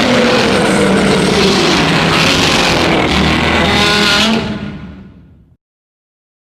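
Shin Godzilla roar sound effect: a loud, noisy roar whose pitch slowly falls, fading out over about a second, starting around four seconds in.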